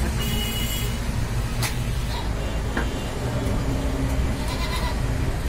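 Steady low rumble of street traffic from vehicles passing the shop, with a single short click about a second and a half in.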